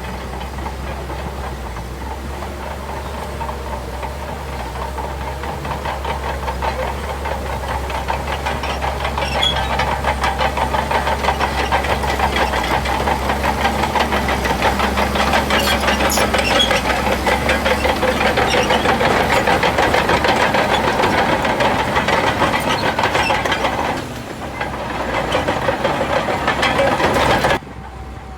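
Shantui DH17C2 bulldozer's diesel engine working hard, with a fast, even clatter running through it. It grows louder over the first ten seconds, dips briefly near the end and then cuts off abruptly.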